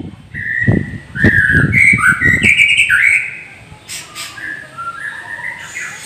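White-rumped shama singing: a quick run of clear whistled phrases that step up and down, loud for the first three seconds, then softer, sparser notes. A few low thumps sound under the first phrases.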